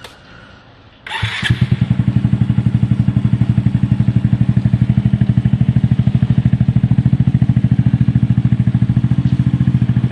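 Yamaha Mio 125S scooter's single-cylinder four-stroke engine, fitted with an aftermarket Akrapovic Hexatip 345 mm exhaust, starting about a second in and then idling with a steady, even exhaust pulse.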